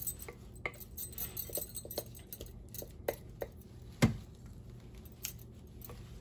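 Spatula scraping and tapping against a glass mixing bowl as thick dip is scraped out into a shallow metal pan, with irregular light clinks and one louder knock about four seconds in.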